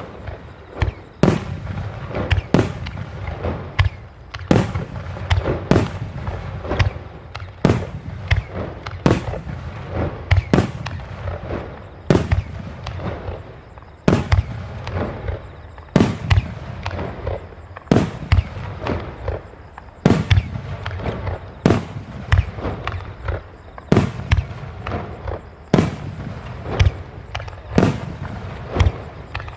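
Fireworks finale barrage: aerial shells bursting in quick succession, one bang every second or so, with crackling between the bangs.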